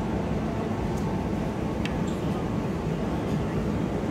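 Steady low rumble of a busy food centre's background noise with indistinct chatter, and a couple of faint light clicks.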